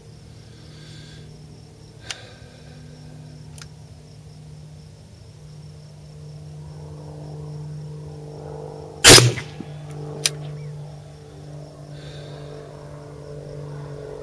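A single shot from an AKM rifle in 7.62×39 mm about nine seconds in, loud and sharp with a brief echo. A few fainter sharp cracks come around it, over a steady low drone.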